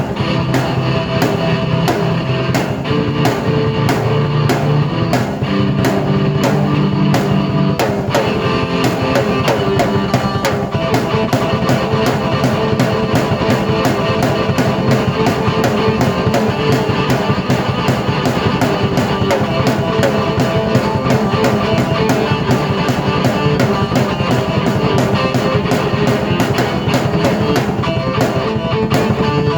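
Drum kit and keyboard played together in a rock-style piece, with a steady kick-and-snare beat under keyboard chords. About eight seconds in, the drumming gets busier, with constant cymbal strokes.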